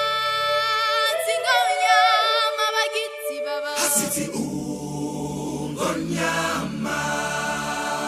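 Vocal music, choir-like singing. It opens with long held notes that waver in pitch, and more voices with a lower part come in about four seconds in.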